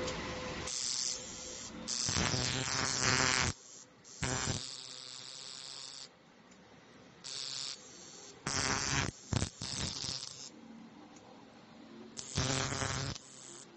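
WS-275 pulse TIG (argon-arc) welder's high-frequency arc starter sparking from the torch: a buzzing crackle in repeated bursts, each under two seconds, as the torch trigger is pressed and released.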